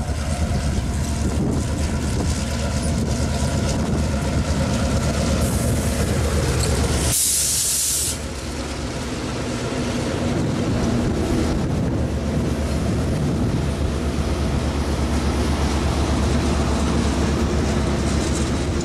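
An EMD GP38-2 diesel locomotive passes close by, its engine running with a steady low hum. The passenger cars behind it then roll past with a continuous rumble of wheels on rail. A short, loud hiss sounds about six to eight seconds in.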